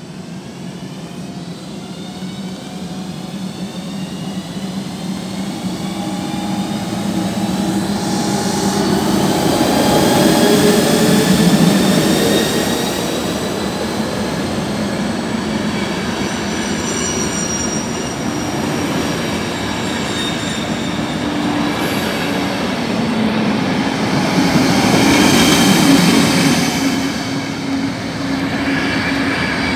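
ÖBB Intercity train hauled by an electric locomotive rolling along the platform: a steady rumble of wheels and coaches with high, gliding squeals from the wheels. It builds to its loudest about ten seconds in as the locomotive passes, and swells again around twenty-six seconds.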